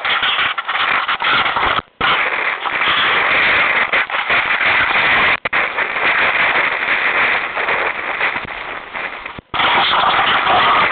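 Loud, rough crackling noise on the camera's own microphone, the rush of wind over it or of the phone rubbing as it is moved, with no engine sound. It cuts out briefly three times.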